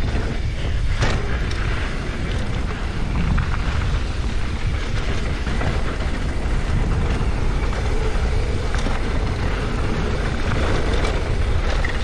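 Wind rushing over the camera microphone with a steady low rumble while a mountain bike descends a trail at speed, with tyre noise and occasional short knocks and rattles from the bike over the ground.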